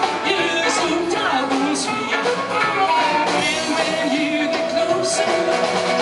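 Live bluesabilly band playing: upright double bass and strummed archtop guitar under a lead vocal, with a long held note through the second half.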